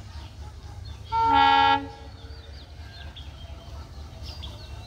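India-built Alco diesel locomotive's horn giving one short blast of under a second as the train pulls out of the station.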